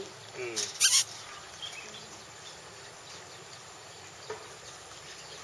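Steady background of insects buzzing outdoors. About a second in there is a short, loud burst of noise.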